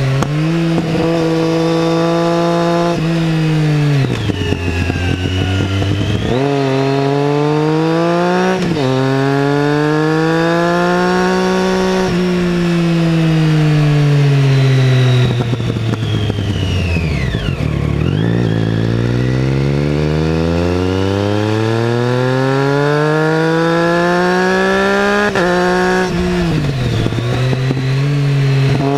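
2012 Triumph Street Triple 675R's 675 cc inline-three, through an aftermarket MASS exhaust, revving up and coming off the throttle again and again while riding. The revs climb and fall repeatedly, with two quick rises in the first third and a long run down to low revs about halfway through.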